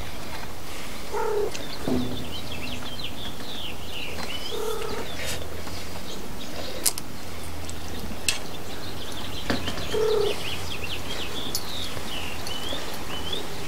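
Wild birds chirping repeatedly, short high twitters over a steady low background hum, with a few sharp clicks in the middle.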